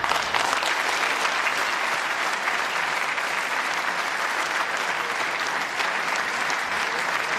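Large audience applauding: many people clapping, breaking out suddenly and holding steady.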